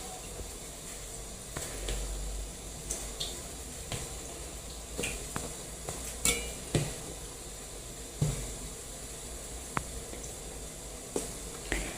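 Scattered light clinks and taps of dishes and utensils being handled, over a faint steady hiss.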